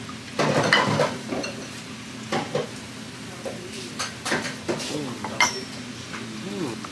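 Scattered clinks and knocks of glassware and bar utensils over a steady hiss.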